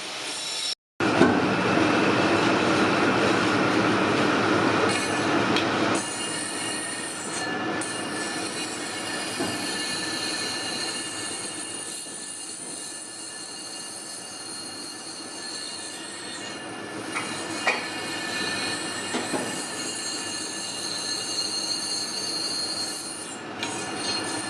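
Bronze being worked by a metal-cutting or grinding tool: a continuous scraping noise with a high, steady metallic squeal ringing over it. It cuts out briefly about a second in, is loudest for the next few seconds, and drops a little about six seconds in.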